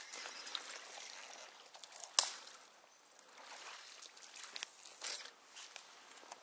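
Light splashing and trickling of creek water as a hooked coho salmon is played near the surface, with one sharp knock about two seconds in.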